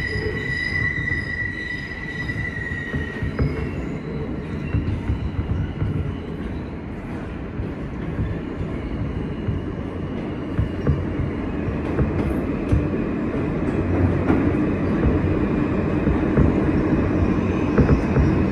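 Kawasaki R160B subway train running through the tunnel: a steady high-pitched squeal fades out about three seconds in, leaving the rumble of the wheels on the track, which grows louder toward the end.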